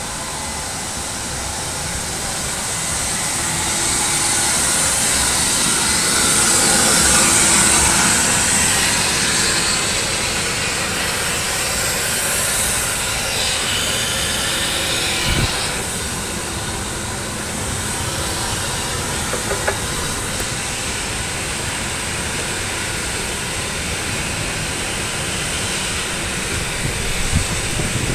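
Steady machine hiss and hum from a 2018 Mitsubishi J Series escalator ride, swelling to its loudest about seven seconds in and easing off after the middle, with a few small clicks near the end.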